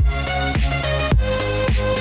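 Background electronic dance music with a steady kick-drum beat, almost two beats a second, under sustained synth notes.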